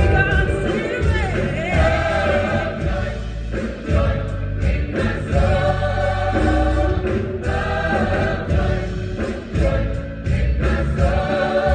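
A choir singing gospel music with a band: held, wavering sung notes over a strong bass line.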